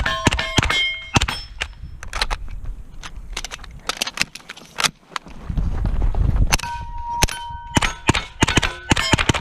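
Rapid 9mm shots from a PTR 9CT pistol, fired in quick strings, with steel targets ringing a clear tone after the hits. About halfway there is a short lull with a low rumble before a second fast run of shots.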